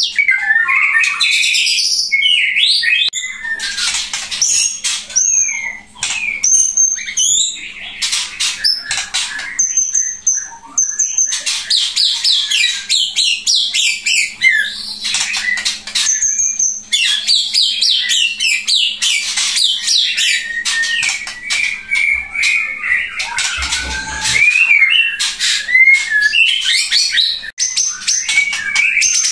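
Pasaman-strain white-rumped shama (murai batu) singing without a break: a fast, varied song of rapid clicking notes, quick slurred phrases and repeated high whistles.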